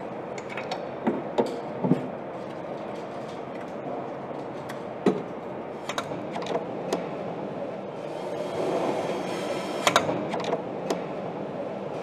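Assembly-line ambience over a steady background hum, with scattered sharp clicks and knocks of parts and plug connectors being handled on an electric scooter battery pack; a stretch of louder hiss with several clicks comes about nine to eleven seconds in.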